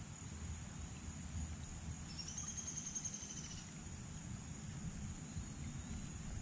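Insects chirring steadily in high thin tones, with a louder pulsed trill from about two seconds in that lasts about a second and a half. Low wind rumble on the microphone underneath.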